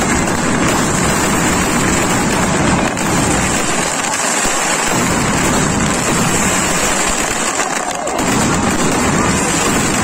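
Firecrackers going off in a dense, continuous crackle, loud and unbroken.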